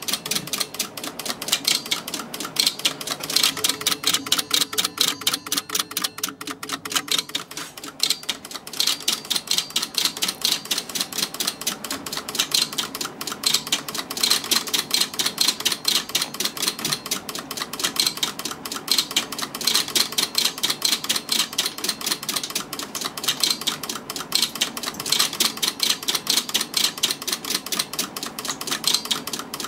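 Relays in the Ward turret lathe's vacuum-tube CNC control cabinet clicking rapidly and steadily, many clicks a second, as the program steps through in auto mode. A faint hum sits under the clicks for the first several seconds.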